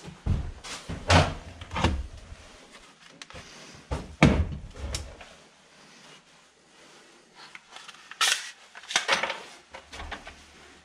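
Clunks, knocks and clatter of plastic tool cases and boxes being handled and opened on a workbench. There are several sharp clunks in the first few seconds, a quieter stretch, then another cluster of knocks near the end.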